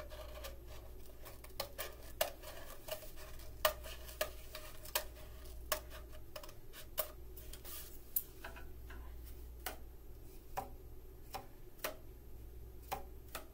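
A knife cutting around a cardboard paper-towel tube to shorten it: a string of light, sharp clicks and snicks at irregular intervals, about one or two a second, as the blade works through the cardboard.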